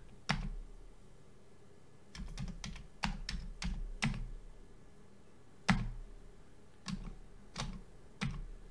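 Keys being typed on a Commodore 64 keyboard: a quick run of keystrokes entering a login and password, then a few single, spaced strokes, the loudest just past the middle.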